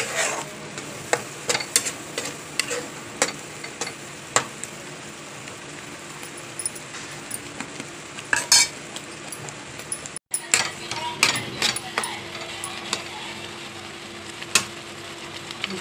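A spatula stirring and scraping through thick pea and paneer masala gravy in a nonstick kadai, with irregular clicks against the pan over a light sizzle. The sound drops out briefly about ten seconds in.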